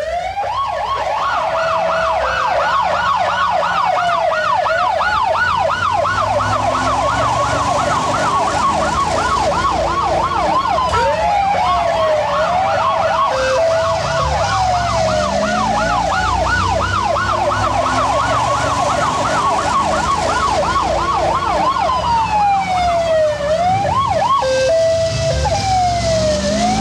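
Fire truck siren, switching between a fast yelp that sweeps up and down several times a second and a slower rising and falling wail, over the truck's engine running.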